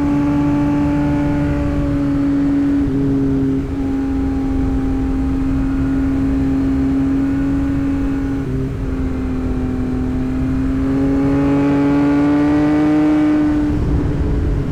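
Tuned Yamaha MT-09 three-cylinder motorcycle engine and exhaust running under way at a steady pitch, with brief dips at about three and four seconds and again past the middle. Late on the pitch climbs slowly, then drops near the end.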